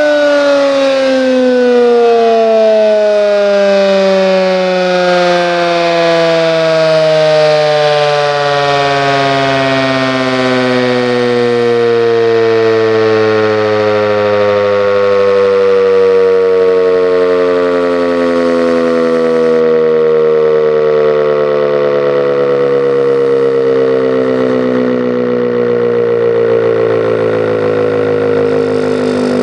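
Restored Werden civil defense siren winding down, its loud multi-note tone sliding slowly and steadily lower in pitch.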